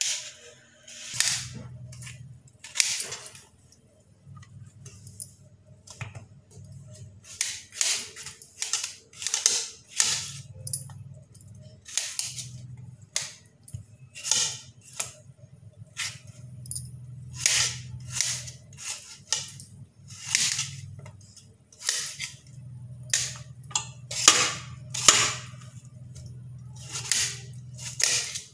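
Kitchen knife chopping Mangalore cucumber into small pieces on a stainless steel plate: sharp, uneven clicks of the blade striking the metal plate, about one or two a second.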